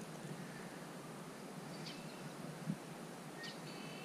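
Birds chirping in short calls from the reeds over a faint steady hiss of outdoor air, with a single low thump about two-thirds of the way through.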